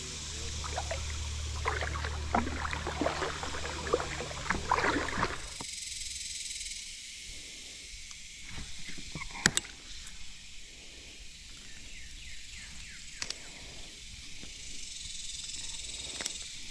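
Kayak paddle strokes, with water splashing and dripping off the blades, for the first five seconds or so. It then turns quieter, with a few small sharp clicks and taps from handling the fishing line and spinning reel.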